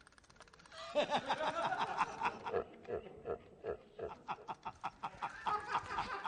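A spoon tapped rapidly against the teeth, a quick run of clicks whose pitch shifts as the mouth changes shape, picking out a tune.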